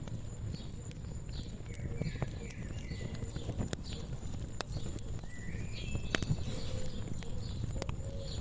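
Wood fire crackling, with irregular sharp pops over a low steady rumble, and birds singing short chirping phrases several times in the background.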